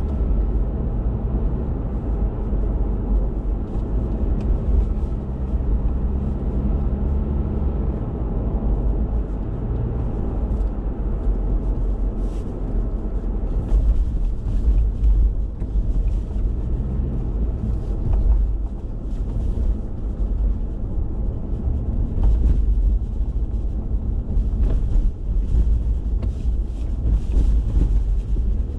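Car driving along a rough village road, heard from inside the cabin: a steady low rumble of engine and tyres, with frequent short knocks and rattles from about halfway on.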